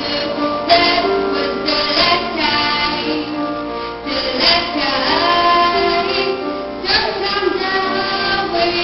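A female voice singing a pop ballad over instrumental accompaniment, with long held notes.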